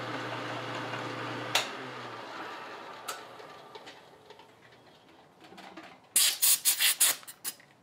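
Milling machine spindle running down, its low hum stopping about two seconds in, with a couple of sharp clicks. Near the end comes a quick run of short, loud hissing blasts from a compressed-air blow gun clearing aluminum chips from the cut.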